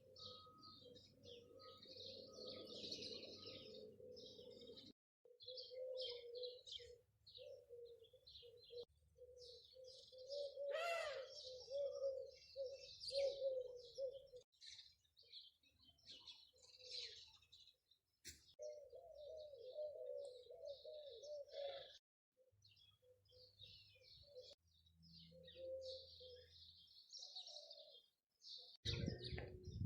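Birds chirping and calling outdoors, faint, with a lower wavering call under the high chirps; the sound cuts off abruptly several times.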